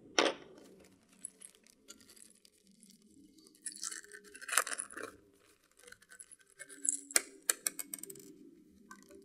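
Small plastic accessory bags being handled and opened: crinkling plastic with light clicks, coming in two spells about four and seven seconds in.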